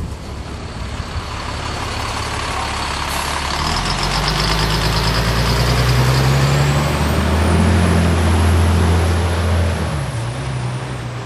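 Caterpillar C9 ACERT diesel engine of a Neoplan AN459 articulated bus heard on board, accelerating: the low engine note grows louder about four seconds in and runs strongly, then eases off near the end. A faint high whine climbs in pitch during the loud stretch.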